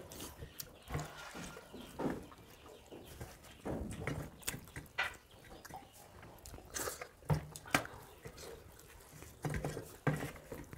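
Mouth sounds of two people eating rice by hand, with chewing, lip-smacking and wet bites in irregular short bursts, and fingers working rice against steel plates.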